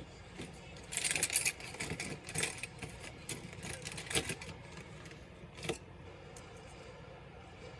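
Clicks and light clatter of small laptop parts and tools being handled: a quick cluster of clicks about a second in, then a few single clicks, before it goes quieter.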